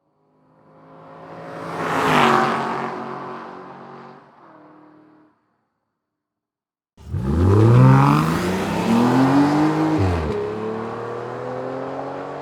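Aston Martin car passing by, its engine note swelling to a peak about two seconds in and then fading away. After a short gap, the engine cuts in suddenly with a sharp rev that climbs and drops back, then keeps running with a slowly rising note.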